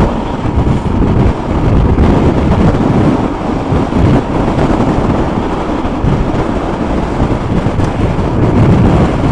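Wind blasting over the microphone of a motorcycle riding at road speed, a rough, gusting rush with the bike's engine and road noise underneath.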